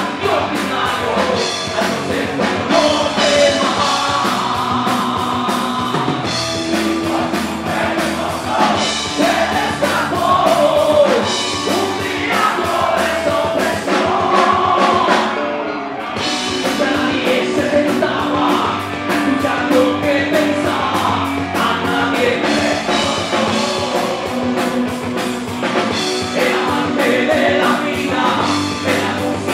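A live rock band playing, with a male lead singer singing over electric guitars and drums.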